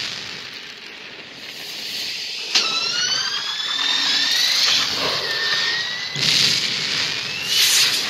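Animated-film sci-fi sound effects of a space hero's rocket flight, heard through a TV's speakers. A sudden burst about two and a half seconds in sets off whining tones that glide up and down together, and bursts of rushing jet noise follow near the end.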